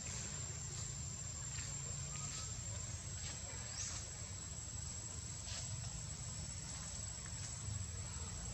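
Steady background noise: a thin, constant high-pitched whine over a low rumble, with scattered soft clicks and rustles.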